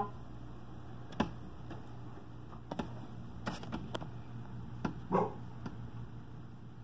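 Quiet room with a steady low hum, a handful of scattered light clicks and taps, and one short whine about five seconds in.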